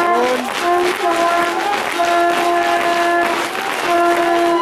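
Spectators cheering and clapping while a horn blows long notes at one steady pitch, four times over.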